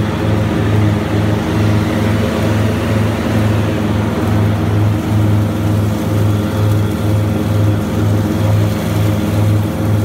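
Grasshopper 325D zero-turn mower running steadily under load, its diesel engine driving the deck blades and the Power Vac blower as it picks up leaves. A low, steady drone with a throb about twice a second.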